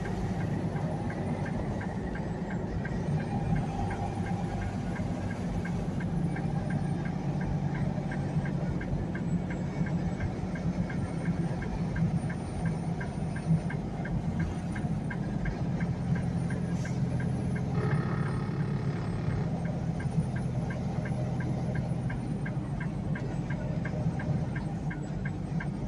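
Semi truck's diesel engine running steadily under way, heard inside the cab as a low drone, with a fast, regular light ticking over it. About eighteen seconds in, a brief rush of noise rises over the drone.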